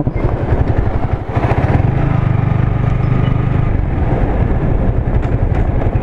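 Yamaha MT-15's single-cylinder engine running steadily as the motorcycle cruises along an open road, heard from the rider's camera. The engine note swells for a second or two about two seconds in, then settles back.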